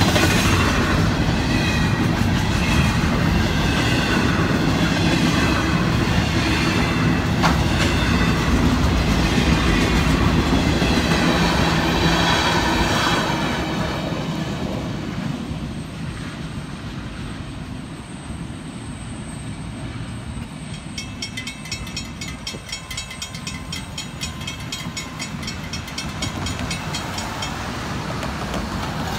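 Freight train of empty intermodal well cars rolling past with wheel clatter and squealing wheels. About halfway through it turns quieter as the end of the train clears a road crossing, where a crossing bell is ringing with even, rapid strokes and road cars are passing.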